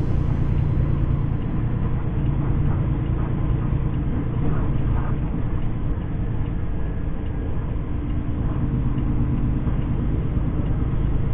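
Semi truck's diesel engine and road noise, heard from inside the cab: a steady low drone as the rig rolls slowly on an icy highway.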